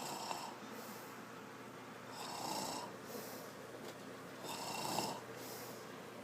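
Snoring, with three rasping snores about two and a half seconds apart.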